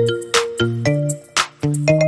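Background music: an electronic melody of short plucked notes over a steady beat with a hit about every half second.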